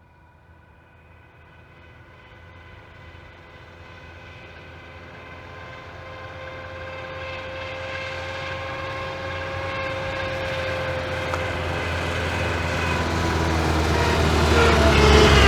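A car reversing toward the microphone: a steady whine with several pitched tones over the engine's low rumble, growing steadily louder throughout, the pitch dipping slightly near the end as it slows.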